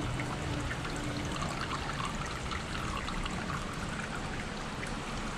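Waterfall water running and splashing steadily.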